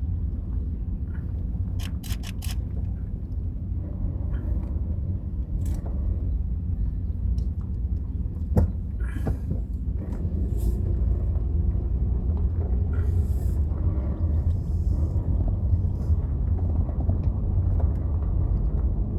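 Steady low rumble of a car driving, heard from inside the cabin, with a few light clicks and one sharp knock about halfway through.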